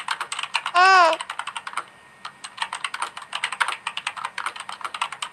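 Rapid, irregular clicking of typing on a keyboard, several keystrokes a second, with a short hummed "hmm" that rises and falls about a second in.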